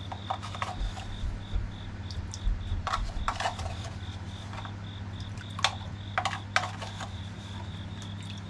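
A small spoon clicks and scrapes in a plastic container of salt as salt is scooped and shaken into a bowl of fish soaking in water. Behind it are a steady low hum and a high pulsing chirp, a few pulses a second.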